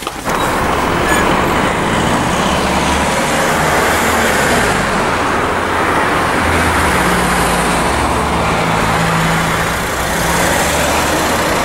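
Steady road traffic noise: car engines running with a low hum over a continuous rush of road noise.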